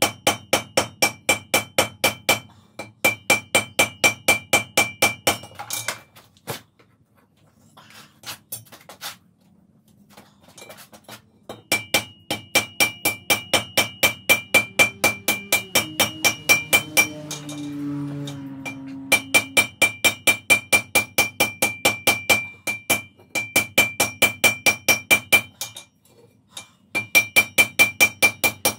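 Hand hammer striking red-hot wrought iron held in tongs on an anvil: fast runs of blows, about three a second, with the anvil ringing after each strike. The hammering stops for several seconds about a fifth of the way in and pauses briefly near the end.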